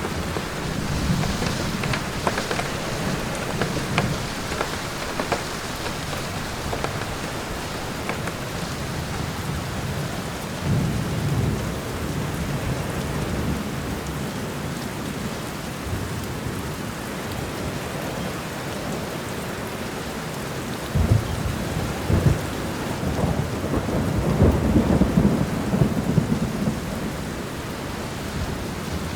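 Steady rain falling in a forest thunderstorm, with low thunder rumbling in several rolls: once at the start, again about ten seconds in, and longest and loudest in a drawn-out roll near the end.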